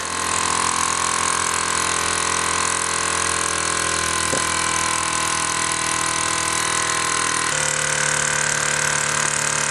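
Luton Bowman PW 202 overtype toy steam engine running on live steam: a steady, fast-running hum over a hiss. About seven and a half seconds in, its note shifts slightly.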